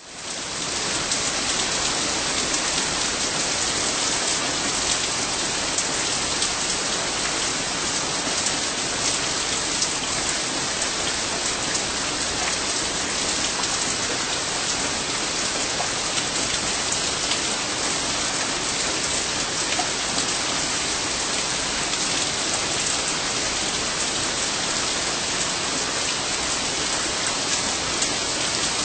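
Heavy rain falling steadily, a dense even hiss full of small drop patters. It fades in over the first second and then holds level throughout.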